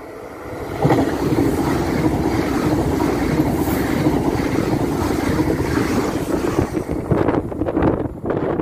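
Frecciarossa 1000 high-speed electric train passing through a station at speed. A loud rush of wheels on rail and displaced air arrives sharply about a second in and holds steady, then turns gusty near the end as the train moves away.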